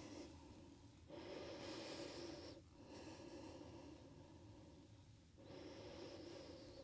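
A woman's slow, faint breathing while holding a seated forward bend, two longer, louder breaths with a quieter one between them.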